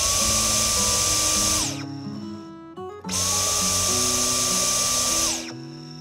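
Dyson V10 Fluffy+ cordless vacuum run twice on the trigger: each time the motor spins up with a rising whine to a steady high-pitched rush of suction, holds for about two seconds, then winds down. It runs smoothly without pulsing or cutting out, working normally now that its washed filter is fully dry.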